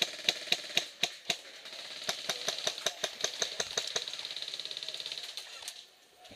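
Airsoft electric guns firing: a string of sharp shots a fraction of a second apart, then a long rapid full-auto burst that stops shortly before the end.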